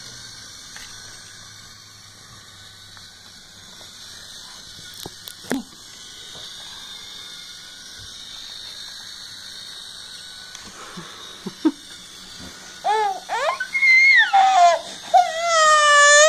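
Faint room hiss with a couple of small knocks, then about 13 seconds in an infant starts crying, loud cries that rise and fall in pitch and grow louder toward the end.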